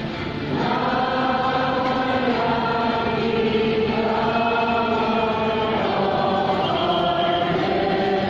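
Congregation of many voices singing a slow hymn together, long held notes changing every second or two.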